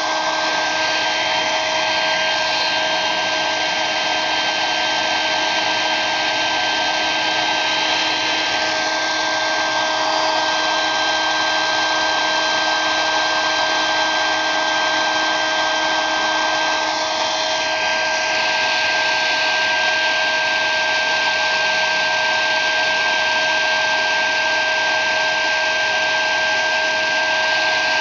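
Hair dryer running steadily: a hiss of blown air over a steady motor whine, the air noise shifting slightly a little past halfway.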